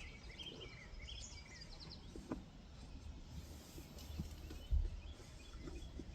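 Small birds chirping in short quick phrases during the first second or so, over a low outdoor rumble, with a click about two seconds in and a dull thump near five seconds.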